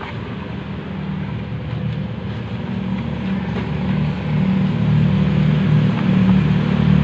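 A motor vehicle engine running steadily with a low hum, growing louder about two thirds of the way through.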